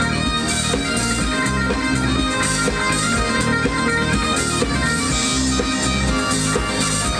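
Music with a steady beat, several instruments playing together.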